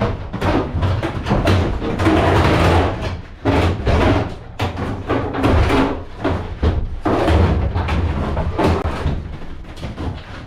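Repeated irregular metal clanks and heavy thuds as heavy scrap metal is dragged and loaded onto the back of a truck.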